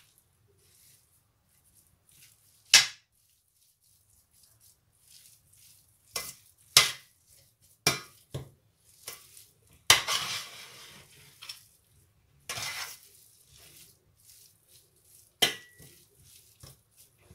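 Spoon scraping and knocking against a stainless-steel frying pan while thick potato and pea samosa filling is stirred and fried, in separate strokes a second or two apart.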